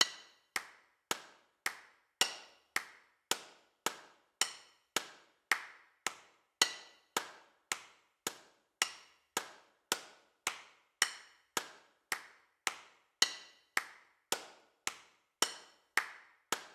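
Steady ticking: sharp clicks just under two a second, evenly spaced, each ringing briefly.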